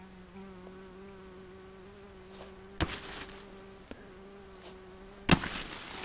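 A flying insect, such as a fly or bee, buzzing steadily close to the microphone. Two sharp knocks or rustles break in, one about three seconds in and a louder one near the end.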